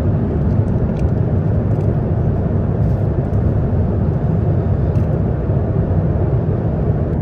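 Steady low rumble of an Airbus A350-900's passenger cabin in cruise flight, with a few faint clicks.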